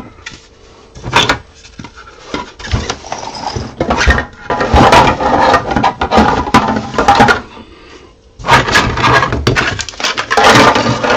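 Large hollow 3D-printed plastic parts clattering and knocking against each other and the cardboard box as they are rummaged through and lifted out. The clatter comes in irregular bursts, loudest in the middle and again near the end.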